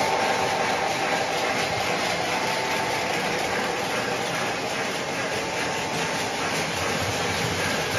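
O scale model freight train, led by a diesel locomotive, running past on three-rail track: a steady rumble and rattle of wheels and running gear.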